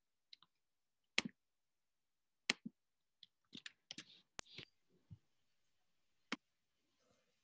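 Faint, irregular clicks of someone working at a computer, spaced a second or so apart, with a quick run of clicks about three and a half to four and a half seconds in and one last click near the end.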